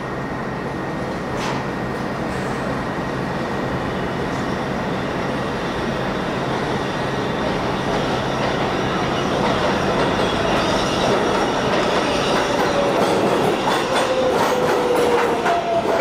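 NYC subway train approaching and pulling into an elevated station. Its rumble and rail clatter grow steadily louder, with a falling whine in the last few seconds as it slows and wheel clicks near the end.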